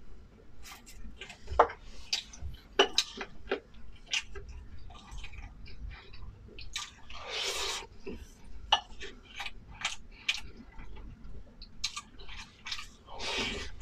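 Close-miked eating: chewing and mouth smacking made of many short, sharp clicks, with two longer noisy sounds, one about seven seconds in and one near the end.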